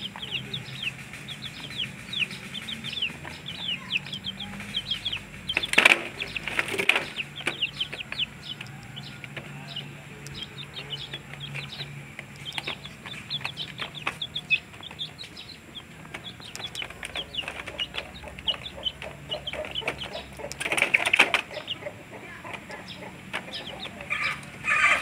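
Month-old ayam trondol chicks peeping continually in short, high, falling cheeps, several a second. A few loud, brief rustling bursts stand out above the peeping.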